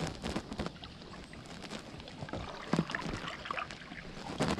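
Water splashing and dripping around a kayak, with irregular short splashes and knocks. The loudest come a little under three seconds in and near the end.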